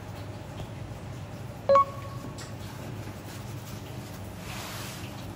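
Steady low hum of a fish-prep backroom, with one short beep about two seconds in as the loudest sound. Soft rustling of paper towel being handled around a fish fillet near the end.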